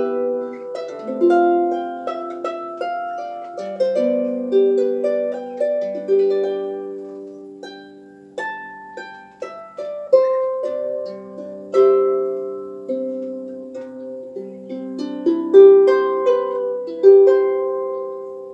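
Solo harp played by plucking: a slow melody over held lower notes, each note starting crisply and ringing as it fades. The last notes ring out near the end as the piece closes.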